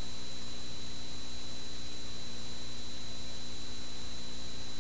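Steady hiss with a low mains hum and a thin high-pitched whine: the noise floor of an old analogue video recording, with no commentary or track sound over it.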